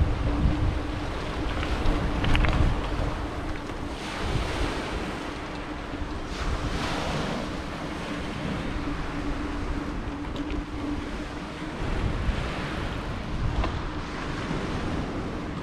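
Wind rushing over the microphone during a bike ride, with small lake waves washing onto a pebble beach in soft swells every few seconds. A steady low hum runs underneath.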